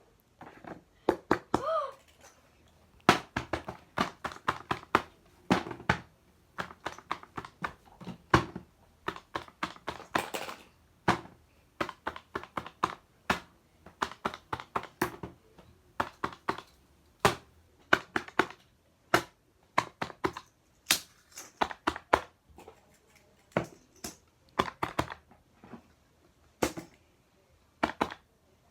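Irregular series of sharp clicks and taps from small hard objects being handled, a few a second with short pauses.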